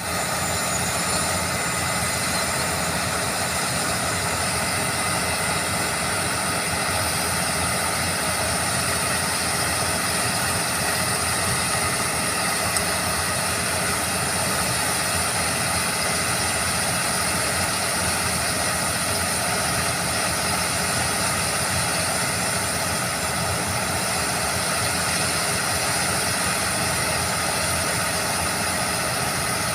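Diesel-powered overburden drill rig running steadily at a mine, with an even, unbroken engine-and-machinery noise throughout.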